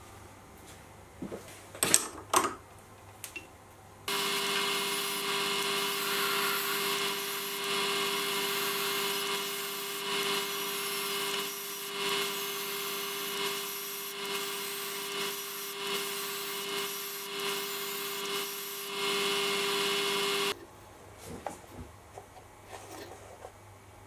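A few sharp clicks and knocks as a boring-bar holder is fitted to a quick-change toolpost. About four seconds in, the metal lathe starts and runs with a steady hum while the boring bar cuts the 8° ER collet taper inside the spinning part. It stops near the end, followed by light handling clicks.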